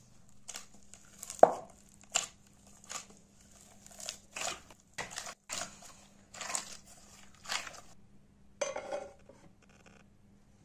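A run of short crinkling, rustling sounds at irregular intervals, the loudest about one and a half seconds in.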